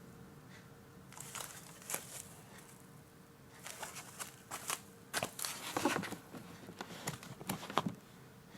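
Packaging being handled: bursts of crinkling and rustling, a short flurry about a second in and a longer run in the second half.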